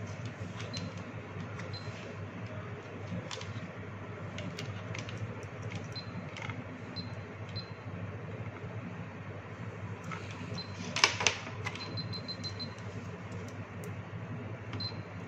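Hioki clamp meter being tested after its dusty selector switch was cleaned: the rotary dial clicks through its positions, the meter gives short high beeps, and the test leads are handled. The handling clatter is loudest about eleven seconds in, and a quick run of beeps follows, all over a steady low hum.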